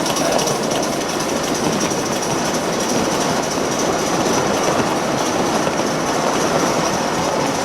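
Gauge 1 model train running along the track: a steady, loud rolling rattle with a high hiss over it.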